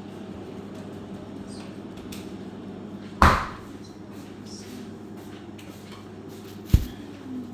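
Kitchen items knocking during food preparation: scattered light clicks and two loud knocks, about three seconds in and again near the end, over a steady low hum.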